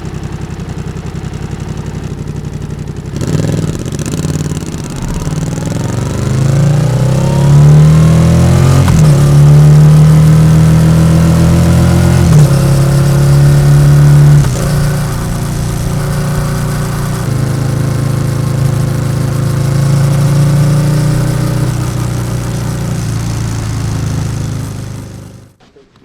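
Yamaha XSR700's parallel-twin engine through an SC-Project aftermarket exhaust: idling, then pulling away with the revs climbing and dropping at each gear change, then running steadily. The sound stops suddenly near the end.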